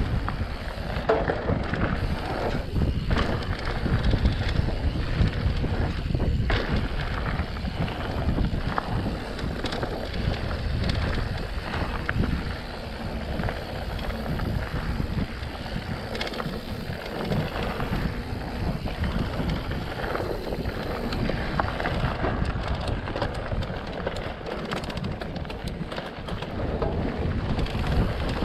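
Mountain bike riding fast down a dirt singletrack: wind rushing over the camera microphone, with tyre noise and frequent knocks and rattles of the bike over bumps.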